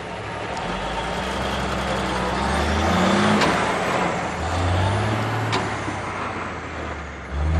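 Engine of an old military cargo truck running as it drives off, revving up twice with rising pitch, loudest about three seconds in.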